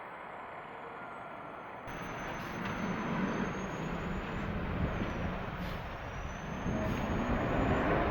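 Fire truck's diesel engine and road noise, starting suddenly about two seconds in and growing louder toward the end.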